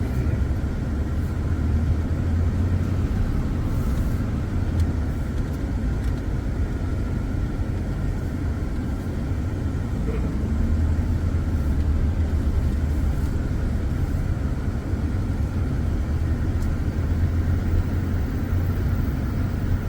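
A vehicle driving along: a steady low rumble of engine and road noise, swelling slightly about halfway through.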